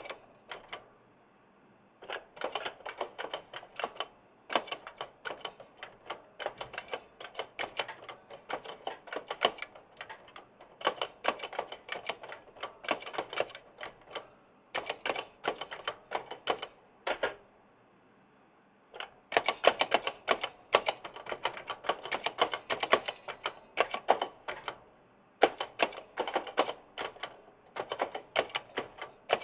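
Giant mechanical keyboard with Kailh Blue clicky switches being typed on: fast runs of sharp key clicks, broken by a few short pauses, with the keys' spring noise in the clatter.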